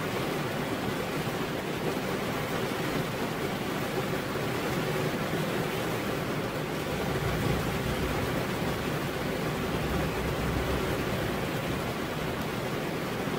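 Heavy rain pouring onto a veranda roof: a dense, steady hiss of water. A deeper low rumble rises underneath for a few seconds midway, then fades.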